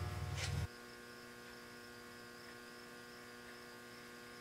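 Faint, steady electrical hum with several thin held tones. A louder low hum cuts off abruptly under a second in.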